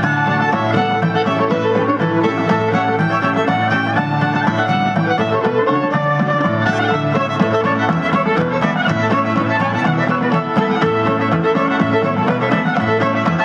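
Music soundtrack led by a fiddle.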